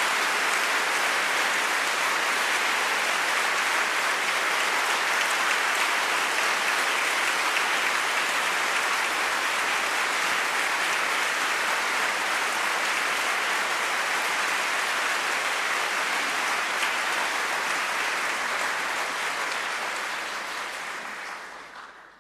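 Concert audience applauding steadily after a song recital, fading out near the end.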